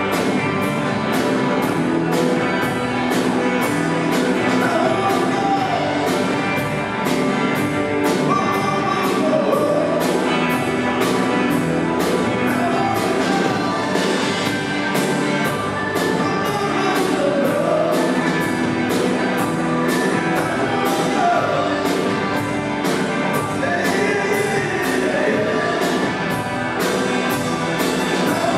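A live rock band playing, with a drum kit keeping a steady beat on the cymbals under an acoustic-electric guitar and an electric guitar, and a man singing lead.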